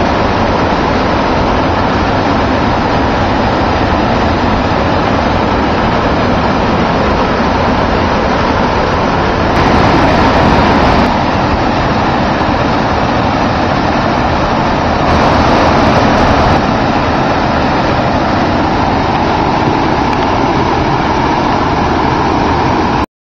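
Waterfall rushing steadily: white water falling over rock into a plunge pool, a dense, even roar. It swells a little twice, about ten seconds in and again around fifteen seconds.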